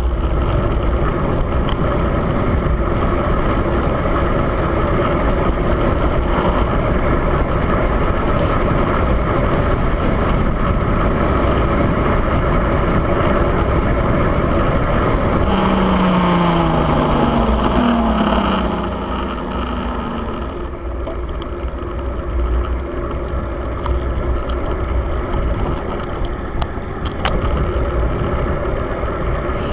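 Steady rush of wind noise on the microphone over a running vehicle engine. About halfway through, the engine note falls, and the noise then eases a little.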